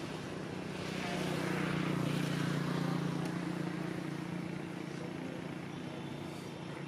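A distant engine's steady drone, growing louder about a second in and fading after about three seconds, as a vehicle passing by.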